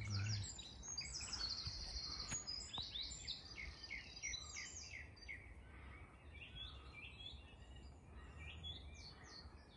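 Several small songbirds chirping and singing, with a fast buzzy trill about a second in, the calls thinning out towards the end. A low rumble of wind-like noise runs underneath.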